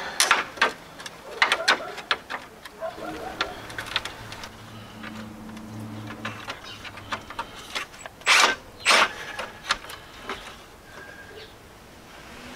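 Scattered clicks and knocks of hand tools on the plastic grille and its fasteners being worked loose, with two louder short noises under a second apart about two-thirds of the way in.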